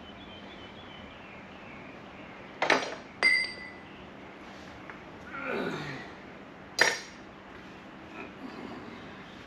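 Hand tools and chair parts being handled at a workbench. A knock comes a few seconds in, then a metallic clink that rings briefly, a scraping sweep falling in pitch, and a sharp knock near the end.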